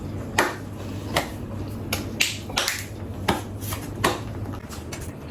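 Eating sounds from a noodle meal: about ten short, sharp clicks and smacks at irregular intervals, roughly one or two a second, over a low steady hum.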